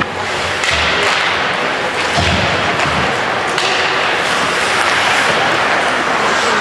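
Ice hockey game sound: a steady hiss of skates and sticks on the ice, broken by a few sharp knocks and a dull thud about two seconds in, typical of puck, sticks and boards.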